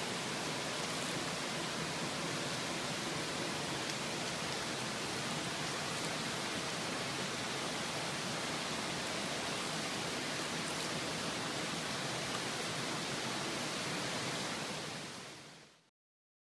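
A steady, even rushing noise with no distinct events, fading out near the end into silence.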